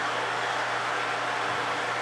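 Water rushing through a hydroelectric turbine, heard from the pit under its 350 kW generator: a steady, even rush with a steady low hum under it.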